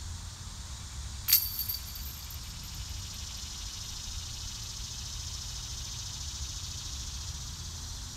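A thrown disc golf disc strikes the metal basket with a single sharp metallic clink about a second in, ringing briefly.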